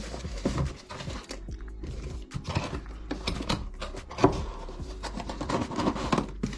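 Helicopter kit parts and their packaging being handled: irregular crinkles, light clicks and knocks, over faint background music.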